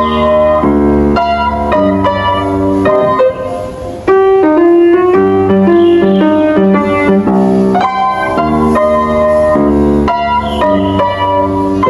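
Upright piano being played: chords struck in a steady repeating rhythm over a bass line. There is a brief dip about four seconds in, then a single-note melody, and the repeated chords return near eight seconds.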